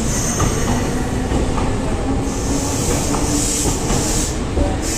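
Semboku Rapid Railway 3000 series electric train moving at the platform, a steady rumble of wheels and running gear on the rails. A high hiss swells for about two seconds midway.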